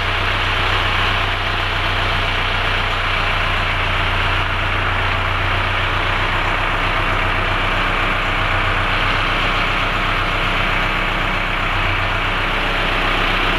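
Sonalika Tiger tractor's diesel engine idling steadily.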